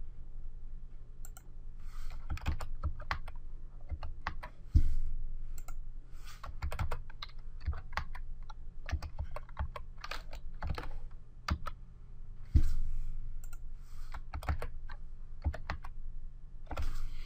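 Typing on a computer keyboard: keystrokes in irregular short runs, with a couple of louder clicks, over a low steady hum.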